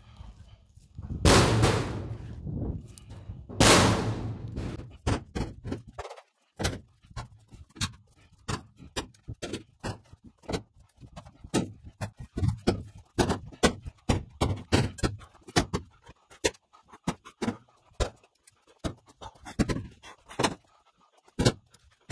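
Firewood being tossed by hand into a dump trailer: a long irregular run of separate wooden knocks and thuds, with two louder, longer crashes in the first few seconds.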